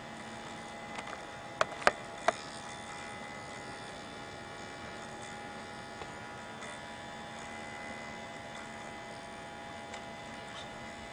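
Steady electrical hum made of several fixed tones, broken by three sharp clicks in quick succession about two seconds in.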